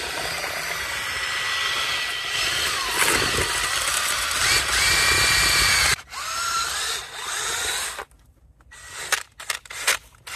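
Cordless drill driving a paddle mixer through a bucket of mortar, its motor whining and changing speed as it stirs, then stopping about eight seconds in. A few short knocks follow near the end.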